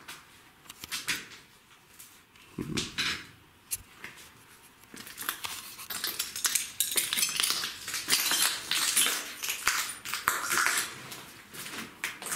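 Broken window glass crunching and clinking underfoot in irregular steps, sparse at first and growing into a busy, continuous crackle about halfway through.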